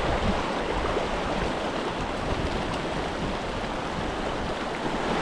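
Mountain trout creek running, a steady wash of water noise.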